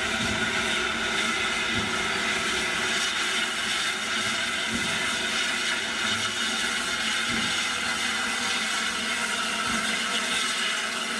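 BR Standard 8P Pacific 71000 Duke of Gloucester hissing steadily with escaping steam as it creeps slowly forward, with faint low thuds about every second and a half.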